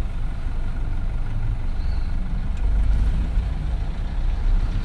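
Low, steady rumble of a vehicle's engine and road noise while riding in slow traffic, getting louder about halfway through.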